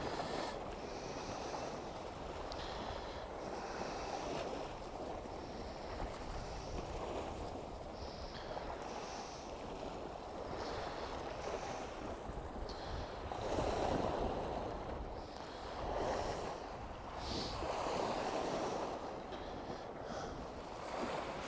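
Wind and waves washing at the shore: an even rushing noise that swells three times in the second half.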